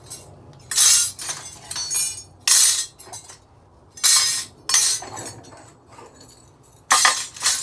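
Pieces of stainless steel scrap, screws and light parts, being dropped into a container: about six separate metal clinks and clatters, spaced irregularly a second or so apart.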